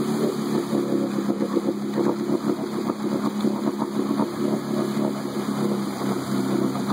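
Can-Am Renegade 800 XXC's V-twin engine held at steady revs while the quad, stuck in deep mud and water, spins its wheels and throws mud.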